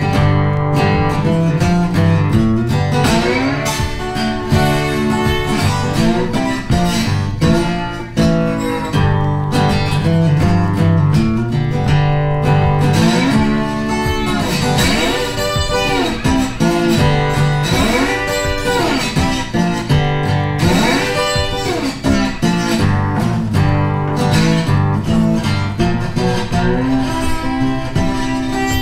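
Background guitar music, with notes that bend up and down in pitch through the middle.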